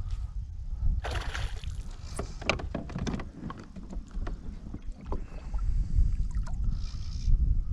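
A hooked fish splashing at the surface while being played on a fly rod, in short bursts about a second in and again near the end, with a run of sharp clicks and knocks in between. A low wind rumble on the microphone runs under it.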